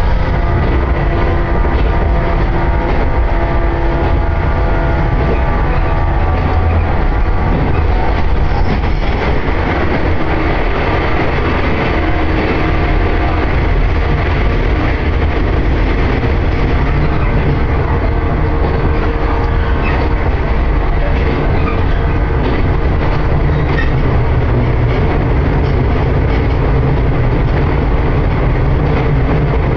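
Electric train running at speed, heard from inside the passenger carriage: a steady, loud rumble.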